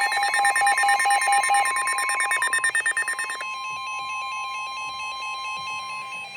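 Several NOAA weather radios sounding a severe thunderstorm warning alert: the steady 1050 Hz warning alarm tone plays under the radios' own rapid, pulsing alert beeps. Some of the beeping stops about two and three and a half seconds in, leaving the steady tone with fainter beeping. The tone cuts off near the end, just as loud rapid beeping starts again.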